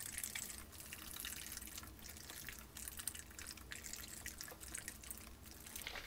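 Oat drink sloshing inside a small carton as it is shaken hard by hand: a faint, rapid, irregular swishing of liquid.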